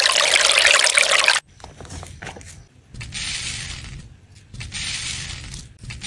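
Loose glitter and sequins poured into an acrylic shaker frame. A loud hissing pour from a plastic squeeze bottle stops suddenly about a second and a half in, then comes a run of shorter, softer rustling pours as sequins are tipped in off a wooden spatula.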